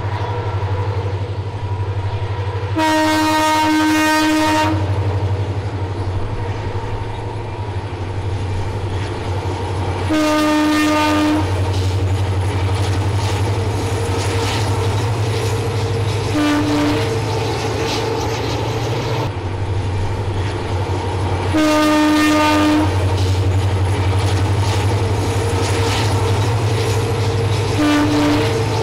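Diesel locomotive running with a steady low rumble, its horn sounding five times: three blasts of one to two seconds and two short toots.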